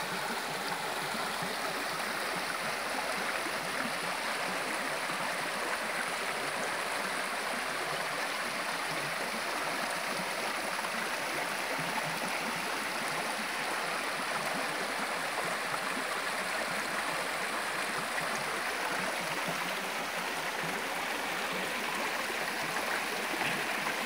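Shallow spring-fed stream running over rocks: a steady, even rush of water.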